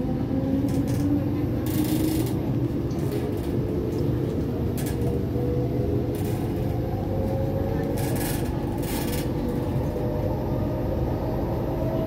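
Interior of an SMRT C751B metro train pulling away from a station: the traction motors give a whine that climbs slowly in pitch as the train gathers speed, over the steady rumble of the wheels on the track, with a few brief high clicks and rattles.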